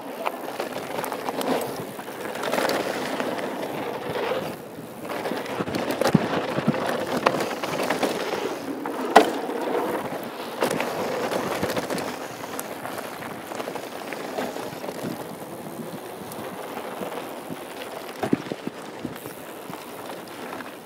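2013 Norco Truax hardtail mountain bike riding fast down a dry dirt and gravel trail: tyres rumbling and crunching over the loose surface, with frequent rattles and knocks from the bike over bumps, the sharpest knock about nine seconds in.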